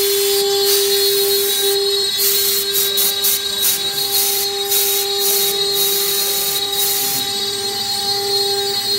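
CNC router spindle running with a steady high whine while its bit cuts MDF, with a rough cutting hiss that surges and eases unevenly.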